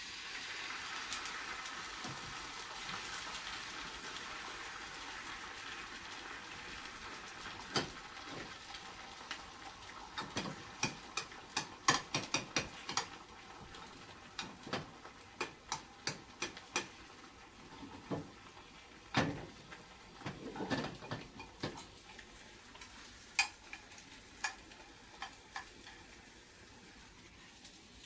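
Beaten egg sizzling in a hot pan: the hiss starts suddenly and slowly dies down. A run of light clicks and taps from utensils on the pan follows.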